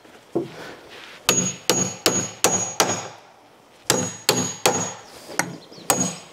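Hammer blows on the head of a steel carriage bolt, knocking its square shoulder down into a wooden table-leg joint so it will hold tight. One blow comes first, then two runs of about five strikes with a short pause between them. Each strike carries a brief metallic ring.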